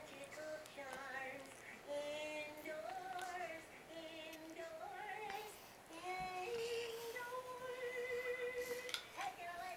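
A high voice singing a slow, sing-song tune of held notes that waver and slide in pitch.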